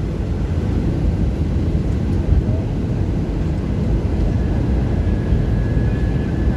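Airbus A320 cabin noise on descent: a steady, loud low rumble of engines and airflow heard from inside the cabin, with a faint thin tone joining it about two-thirds of the way through.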